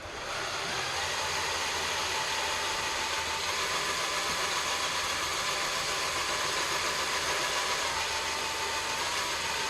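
Electric drill running steadily, spinning a bench vise handle against sandpaper to polish it: an even whir with a sanding hiss that starts right at the beginning and stops at the end.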